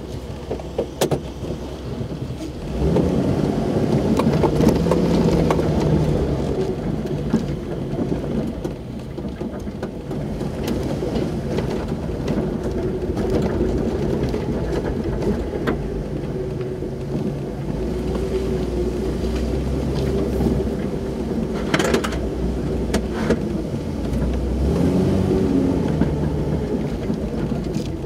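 Jeep Wrangler engine heard from inside the cab as it drives a rough dirt trail, picking up revs about three seconds in and again near the end. A few sharp knocks come from the vehicle jolting over the ground, one about a second in and more about three-quarters through.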